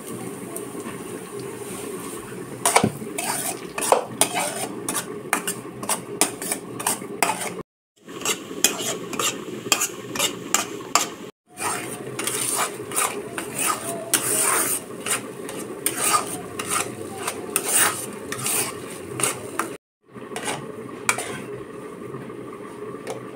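A metal spatula scrapes and clinks against a steel kadhai as semolina is stirred and roasted for suji ka halwa, in quick repeated strokes. The sound breaks off briefly three times.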